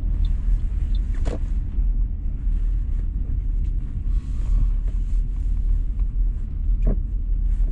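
Car driving on a wet road, heard from inside the cabin: a steady low rumble of engine and tyres, with two short, higher sounds about a second in and near the end.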